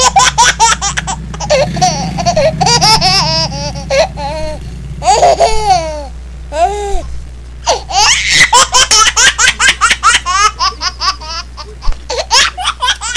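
Loud, high-pitched laughter in several bursts, some in rapid runs of ha-ha pulses, over a low steady hum.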